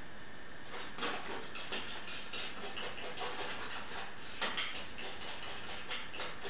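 Metal palette knife scraping and spreading thick paint across a stretched canvas, a quick series of short scratchy strokes starting about a second in.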